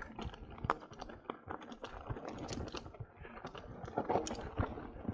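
Mountain bike rolling downhill over a rough dirt-and-gravel trail: a fast, irregular clatter of clicks and knocks as the tyres hit stones and the bike rattles, with a few louder knocks about four seconds in.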